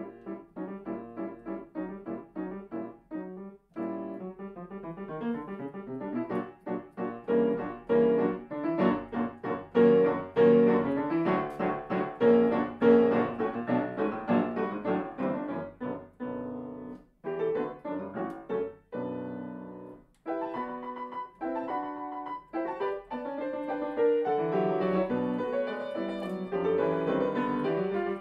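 Grand piano played solo: a fast run of many notes, building to its loudest chords about ten to thirteen seconds in, with two brief breaks a little past the middle before the playing picks up again.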